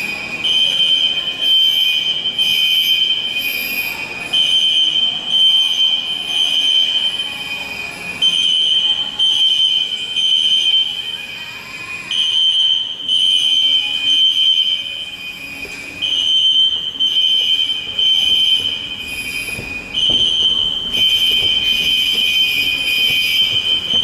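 Building fire alarm system sounding: shrill high-pitched alarm tones pulsing in groups that repeat about every four seconds, with two different kinds of alarm sounding over each other.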